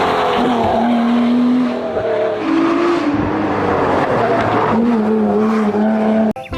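Race car engine sound: the engine note holds, then steps up and down in pitch several times, over a hiss of tyre and road noise. It cuts off abruptly just before the end.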